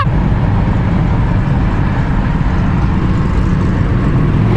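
Steady rumble of road, tyre and engine noise heard from inside a car's cabin while it cruises at freeway speed.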